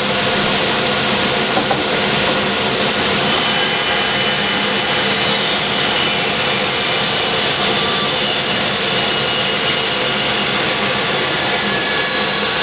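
Bandsaw running steadily and sawing a rough board during rough milling, its motor and blade making a continuous, even sound.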